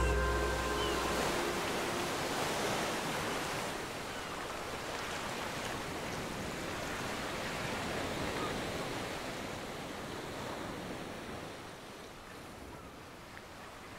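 Ocean surf: waves washing onto a beach as a steady rushing noise that slowly fades out. The tail of a music track dies away in the first second.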